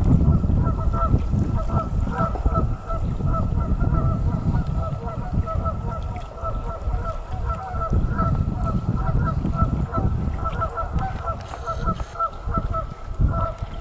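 Many Canada geese honking without a break, their short calls overlapping, over a low wind rumble on the microphone.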